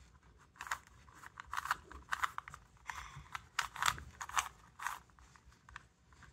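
A plastic 3x3 Rubik's-style cube being turned by hand, its layers clicking and clacking in quick, irregular runs of turns.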